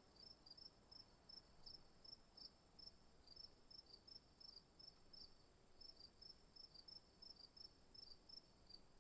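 Faint insect chirping: short high chirps repeating two or three times a second over a steady high-pitched buzz.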